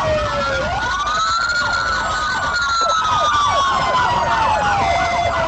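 Police car sirens wailing during a pursuit, several at once: one slow wail rising and falling over a few seconds, overlapped by a faster yelping siren sweeping several times a second.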